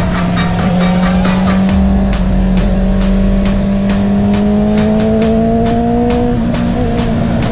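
Honda CB650R's inline-four engine with an Akrapovic exhaust, pulling under hard acceleration, its note rising steadily, with a brief break in the note about six seconds in.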